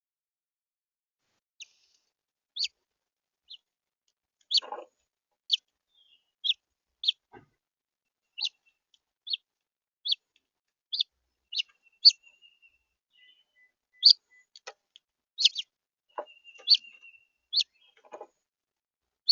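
House finch giving short, separate chirp calls, one every half second to a second, with a few faint rustles between them.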